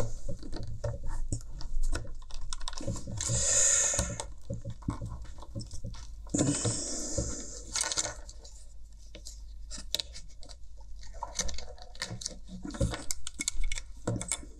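Hands handling a pair of plastic headphones and working at the headband hinge with a small screwdriver: many small clicks, taps and rattles, with two longer scrapes about three and seven seconds in.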